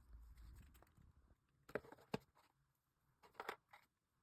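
Near silence, broken by a few faint, short clicks and rustles of small items and packaging being handled: two close together about two seconds in and another near the end.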